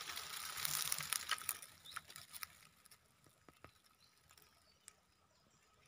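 Faint rustling and crackling of rice plants and dry straw brushed by the moving phone, with scattered small clicks. It dies down to only an occasional click after about two and a half seconds.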